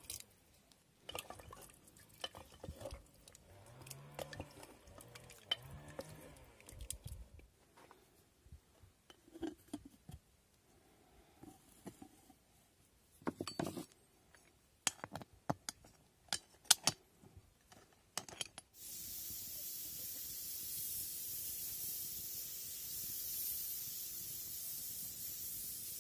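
Scattered metal clicks and knocks as food is dropped into an aluminium pot and its lid is fitted and closed. About three quarters of the way in, a steady hiss sets in suddenly.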